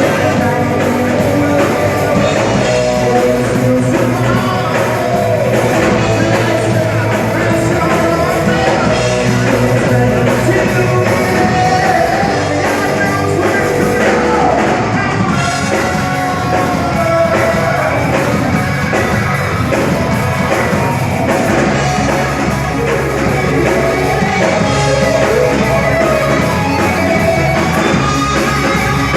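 Rock band playing live with electric guitar, bass, drums and a singer.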